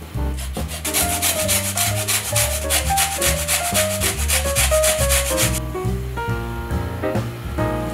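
Lemon rind grated on a handheld metal grater: quick, rhythmic scraping strokes that stop about five and a half seconds in. Background music plays throughout.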